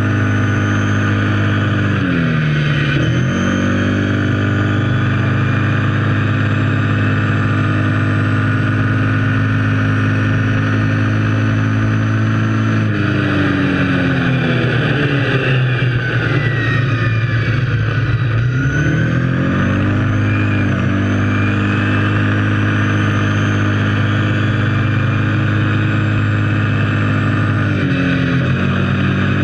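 Kawasaki KFX 700 ATV's V-twin engine running under steady throttle, revs dropping briefly about two seconds in and again near the end, with a longer drop and climb back in the middle.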